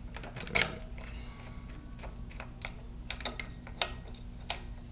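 Irregular light metallic clicks and taps from parts and tools being handled while fitting a pulley bracket on the front of an LS V8 engine, over a steady low hum.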